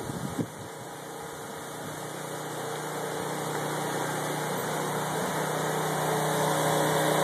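A motor running at a steady pitch, growing gradually louder, after a couple of wind gusts on the microphone in the first half second.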